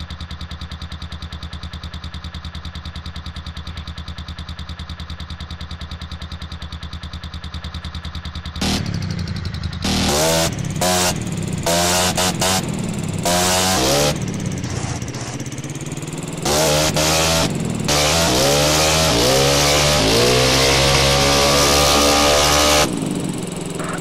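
Yamaha Fino scooter's single-cylinder four-stroke engine idling steadily. About nine seconds in it is revved again and again, in short blips and longer rising revs. Near the end it drops back to idle.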